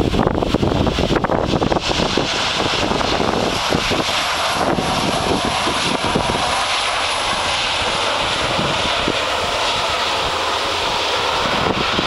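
Boeing 737-300's CFM56 jet engines on the landing rollout: a steady loud roar with a thin high whine that slowly falls in pitch as the airliner rolls past on the runway.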